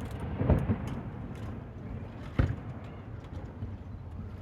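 Aerial fireworks bursting: the rumble of a big shell's boom dying away, a smaller burst about half a second in, and a sharp bang about two and a half seconds in, with faint crackle between.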